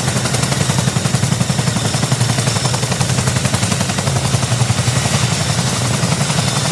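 Helicopter rotor blades chopping in a fast, even beat, with a steady hiss above it.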